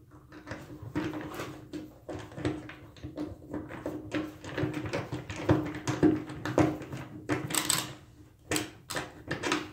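Hand screwdriver turning a stopper screw into a metal bathtub drain: a long run of irregular small clicks and scrapes as the screw is driven in.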